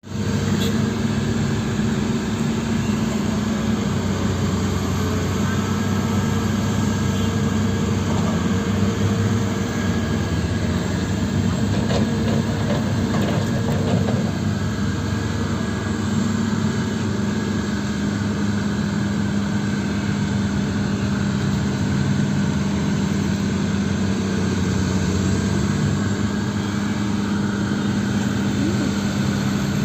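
Heavy diesel earthmoving machinery running steadily, a deep even engine drone that holds one pitch without revving, with a few faint knocks around the middle.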